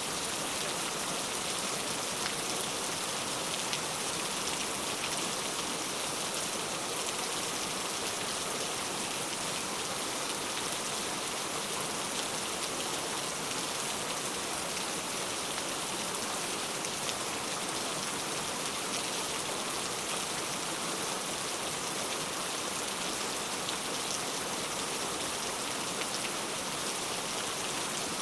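Steady rain, a constant hiss of many fine drops pattering on a surface.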